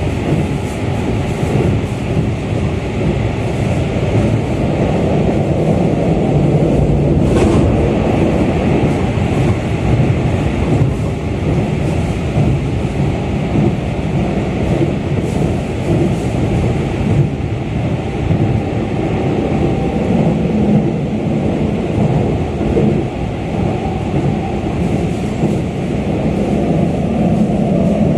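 Keikyu 600 series electric commuter train running between stations, heard from inside the car: a steady, loud rumble of wheels on rail and car body, with one brief click about seven seconds in.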